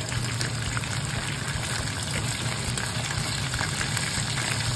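Starch-coated chicken gizzards deep-frying in hot oil at about 200 °C, a steady sizzle and bubbling: the second fry that crisps them.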